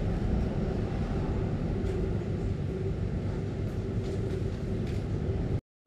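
Steady low rumble with a faint hum, cutting off abruptly near the end.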